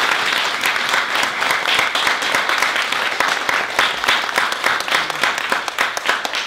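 Audience applauding: many hands clapping in a dense, steady patter that begins to tail off near the end.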